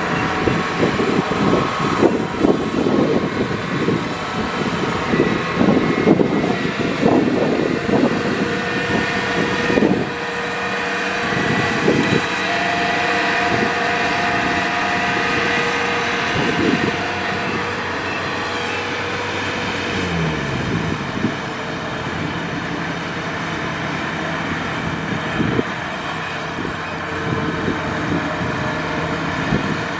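Heavy diesel farm machinery running under load, with repeated knocks and clanks through the first half. About twenty seconds in, one engine's pitch falls as it slows.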